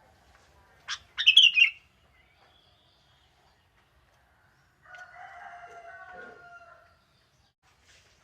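Sooty-headed bulbul giving one short, loud call about a second in. Around five seconds in, a rooster crows more faintly for about two seconds.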